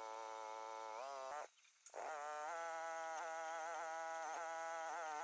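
Mini excavator engine running with a steady buzzing drone. About two seconds in it drops in pitch again and again as the hydraulics take load while digging. It cuts out briefly about one and a half seconds in.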